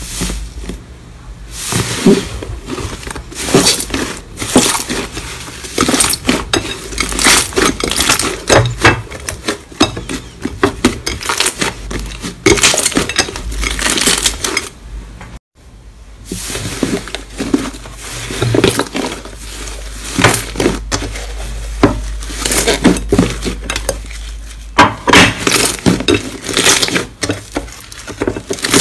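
Hands squeezing and pressing thick slime in a glass bowl: a dense run of wet crackling and popping as trapped air bursts out, with a brief break about halfway through.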